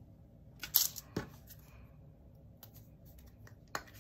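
Hands handling small plastic bags of diamond-painting drills on a tabletop: a few sharp clicks and taps, the loudest about a second in.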